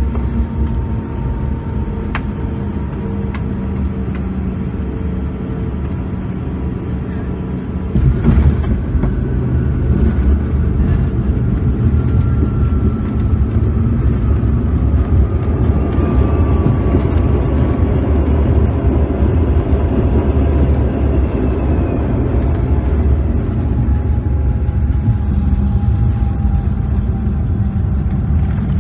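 Cabin noise of a Bombardier CRJ-200 landing: a steady rumble of its rear-mounted engines and the airflow. About eight seconds in there is a sudden jolt as the wheels touch down, and after it a louder rumble of the landing roll holds.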